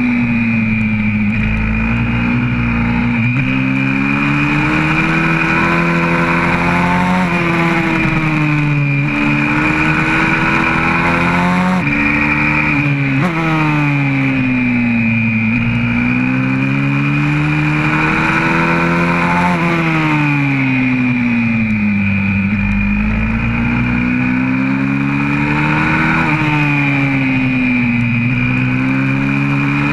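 YCF 125cc four-stroke single-cylinder pit bike engine heard from on board at full racing pace: the pitch climbs under acceleration, drops sharply at each upshift, and falls away in longer glides when slowing for the corners.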